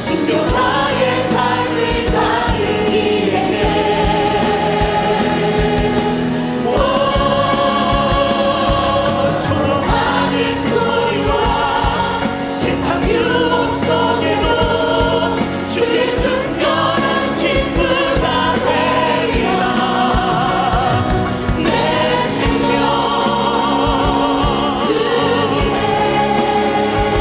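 Choir and congregation singing a Korean hymn with instrumental accompaniment, the voices held on long notes with vibrato.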